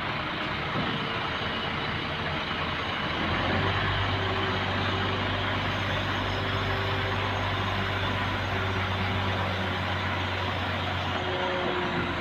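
Heavy vehicle engine running steadily under load during container loading, its low drone growing louder about three seconds in.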